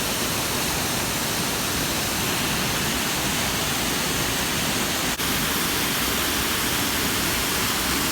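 Waterfall rushing steadily, a dense, even noise of falling water, with a brief dropout about five seconds in.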